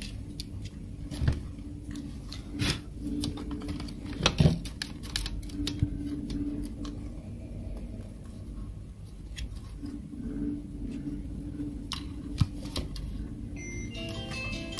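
Scattered clicks and knocks of plastic and metal parts being handled by hand on a dot matrix printer's print-head carriage, over a steady low hum. A short melody starts near the end.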